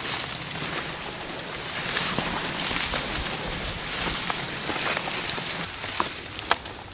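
Wind gusting through trees and brush, a steady hiss that swells a couple of seconds in, with a sharp click near the end.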